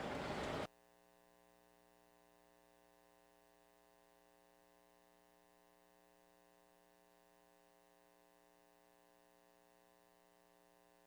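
Near silence. A steady background noise cuts off abruptly under a second in, leaving only a faint, steady hum of tones.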